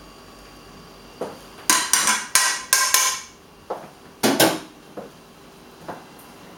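A metal fork and frying pan clinking and knocking against china plates and the hob: a quick run of ringing clatters a second or two in, two loud knocks past the middle, then a few single taps.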